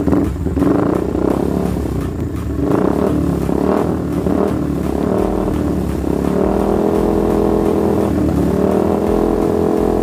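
Yamaha Vixion's 150 cc single-cylinder four-stroke engine idling while its idle speed is adjusted. The idle pitch climbs a little in the second half and drops back near the end.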